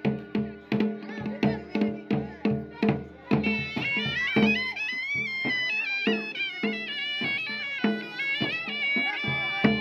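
Pahari Nati folk music: a shehnai-type double-reed pipe plays a wavering, ornamented melody over drums beating about three times a second. About three seconds in the drumming thins out and the pipe's long notes take the lead.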